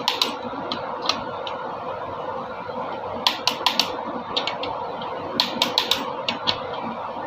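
Sharp metallic clicks and clinks in quick clusters of three or four, typical of hand tools and engine parts being handled during engine disassembly, over a steady background hum.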